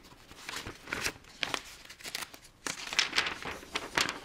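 Paper instruction sheet of a plastic model kit being handled and its pages turned: a run of irregular rustles and crinkles.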